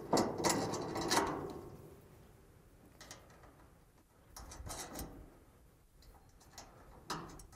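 Metal hardware clinking and knocking as a header-height sensor is fitted and bolted onto a steel L bracket. A cluster of clanks comes in the first second or so, then a few scattered clicks and knocks.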